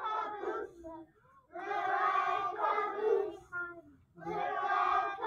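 A group of children singing a simple song together in unison, in short phrases with brief breaks between them.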